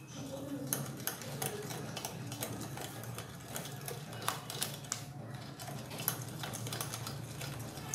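Hand whisk beating a thick yogurt-and-cream mixture in a glass bowl, clicking against the glass several times a second, with wet stirring sounds, over a low steady hum.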